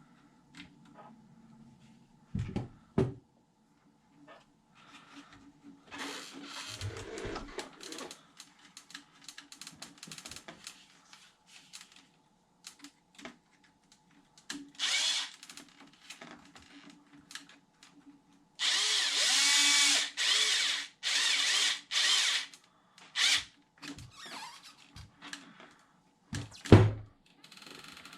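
Cordless power drill or driver whirring in short bursts: one about halfway through, then several in a row later on, the motor pitch sliding as it speeds up and slows. Between them come clicks and knocks of small parts and tools being handled.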